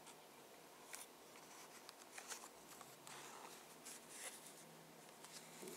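Faint, scattered crinkles and clicks from a clear plastic blister pack being turned over in the hands, over near silence.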